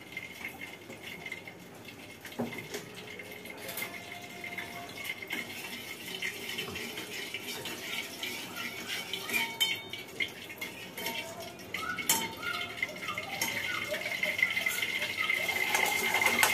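Sugar syrup cooking in a steel kadhai on a gas stove, a steady hiss that slowly grows louder, with a few sharp clinks of steel utensils against the pans.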